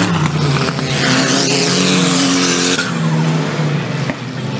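Off-road 4WD race vehicle engines revving, their pitch rising and falling, with a loud hiss of tyres sliding on dirt from about a second in that cuts off sharply near the three-second mark.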